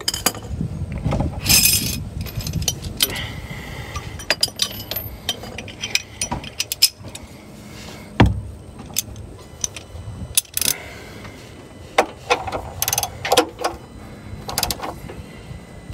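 A wrench tightening an oil drain plug: a run of irregular metallic clicks, clinks and scrapes as the tool works the plug.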